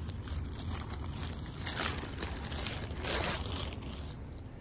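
Rustling and scraping handling noise as a hand-held phone rubs against clothing, over a steady low hum, with a louder rub a little after three seconds in.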